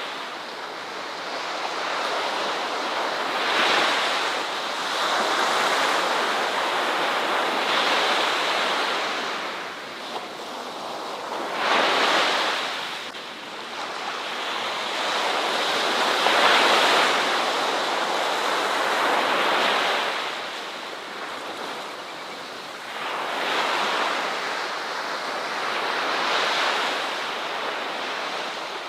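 Ocean waves breaking and washing on a beach, swelling and easing every few seconds. The sharpest break comes about twelve seconds in, with wind noise underneath.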